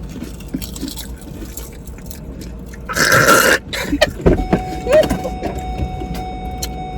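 Several people crunching potato chips, with many short crisp cracks, and a loud short rustling burst about three seconds in.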